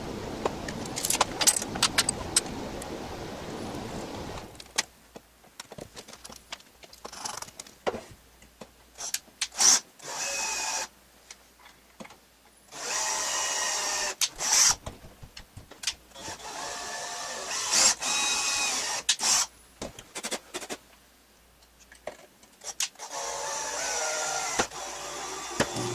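Makita cordless drill running in a series of short bursts as it works into the wooden chair frame, with knocks and clatter from the wood being handled between bursts.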